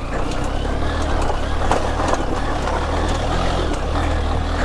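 Motorcycle engine running steadily while riding a rough dirt track, with scattered knocks and rattles as the bike goes over bumps.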